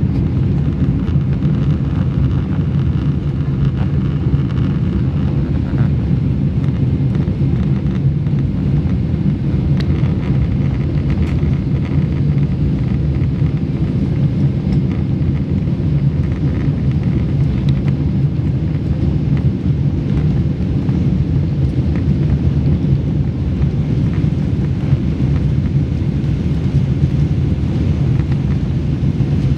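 Steady low rumble of an airliner's jet engines and airflow heard inside the cabin, even in level throughout.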